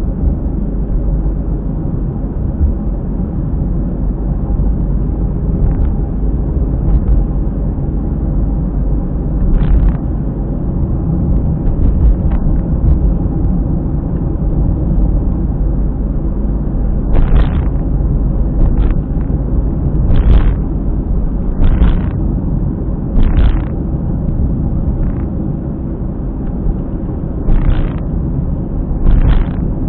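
A car driving, heard through a dashcam: a steady low rumble, with short hissy bursts that come about every second and a half over the second half. This is the periodic abnormal noise from around a tyre that rises with speed, which the owner suspects comes from a failing hub bearing.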